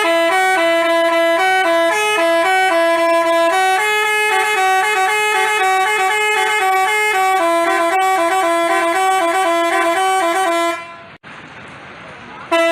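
Basuri telolet horn playing a fast melody of quickly changing, alternating notes. It cuts off about eleven seconds in, and after a short gap the tune starts again near the end.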